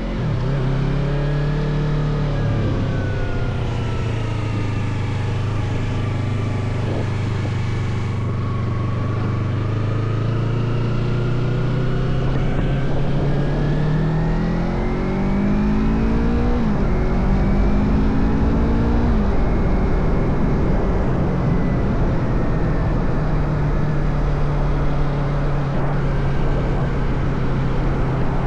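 Motorcycle engine running while riding, its pitch rising as it accelerates and dropping at gear changes several times, over steady wind rush.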